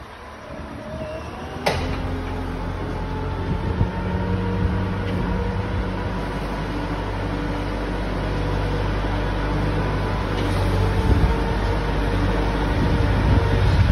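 Tractor engine running steadily as the tractor pushes silage with a tyre-type silage pusher, growing louder as it draws near. A single sharp click about two seconds in.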